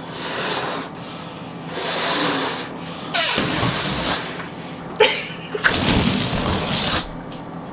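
Rubber balloons made to screech: rubbing squeaks and a rushing hiss in irregular bursts, with a few short squeals.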